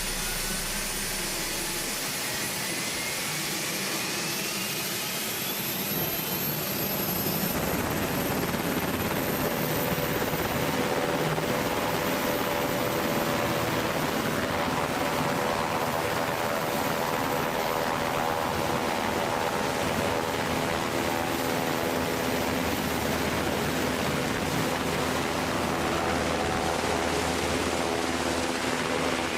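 Aircraft turbine engines running on a carrier flight deck: a high whine rises over the first several seconds, then the engines run steadily with a loud rush and a hum of steady tones.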